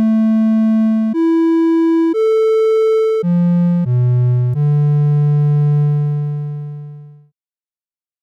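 Software synthesizer playing a pure triangle wave, made as the arcsine of a sine, in a run of six notes stepping up and then down. The last, low note is held and fades out about seven seconds in.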